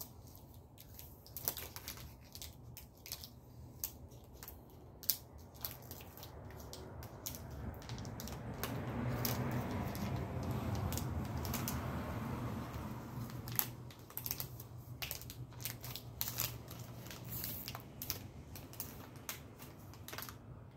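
Foil snack-bar wrapper crinkled and torn open by hand: a run of sharp crackles and clicks. A low rumble swells and fades away in the middle.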